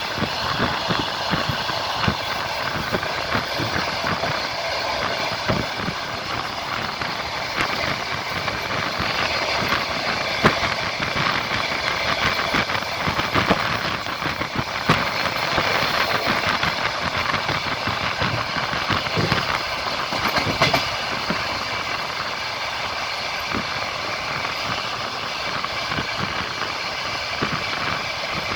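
Passenger train wheels clattering over the rail joints while the train runs along, heard from inside the coach, with a steady running rumble and many sharp clicks.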